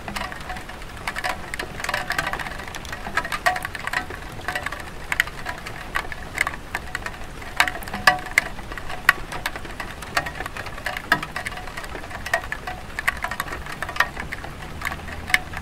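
Light rain on a tile roof: many irregular drops tapping and dripping over a soft steady hiss of rain.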